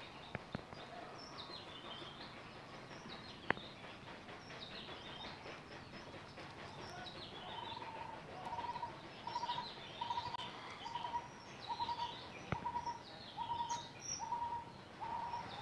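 Birds chirping and twittering, and from about halfway a steady run of short, even-pitched calls, about three every two seconds.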